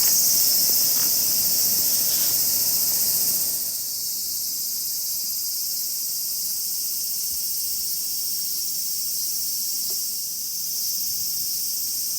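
A steady, high-pitched chorus of summer insects, shrilling without a break. Some softer low rustling under it stops about three and a half seconds in.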